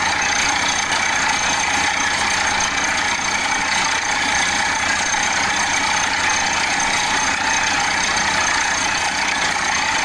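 Borewell drilling rig running steadily as its top-head drive turns the drill pipe into the ground. The machinery makes a continuous mechanical din with a thin, high whine over it.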